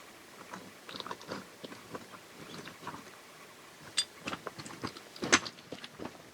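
Footsteps crunching irregularly on a stony trail, with a few sharper clicks of stone, the loudest about five seconds in.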